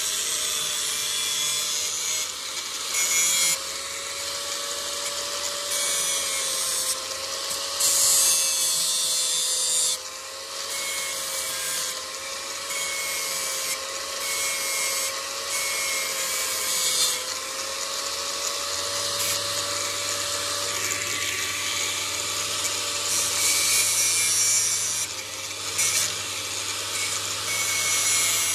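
Electric grinder running with a steady motor hum while a knife blade is ground on it. A high grinding hiss swells and drops back every few seconds.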